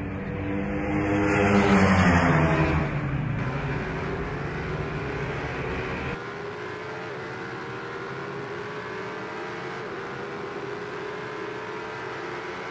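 Several racing superbikes passing at high revs, loudest about two seconds in as their engine note drops past. After a cut about six seconds in, a single superbike engine is heard farther off, its pitch climbing slowly.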